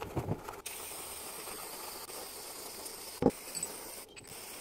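Brief scrubbing of a brush on a foam-covered alternator stator, then a steady faint hiss with one sharp knock a little over three seconds in as alternator parts are handled on the tray.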